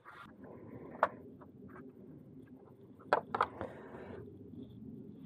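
Hand tools and intake parts being handled in a car's engine bay: a few sharp clicks and clinks, one about a second in and three in quick succession around three seconds in, over faint steady background noise.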